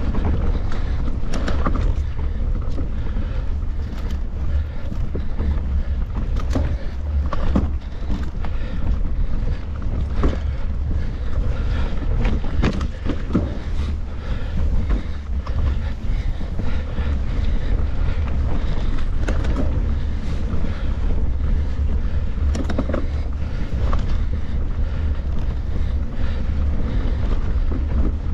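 Wind rumbling on the microphone of a camera on a mountain bike being ridden, with frequent knocks and rattles from the bike going over rough trail.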